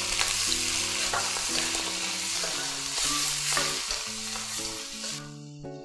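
Shrimp and vegetables sizzling hard in a hot wok as they are stir-fried with a spatula, the just-added splash of water steaming off. The sizzle dies away about five seconds in, over soft background music.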